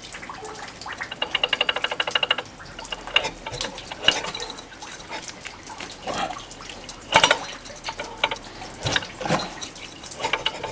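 Bursts of fast, even clicking, about fifteen a second, with scattered single knocks between, from a Suzuki Address 110 scooter engine being turned over without running. It is an unexplained noise the owner wonders may come from the piston.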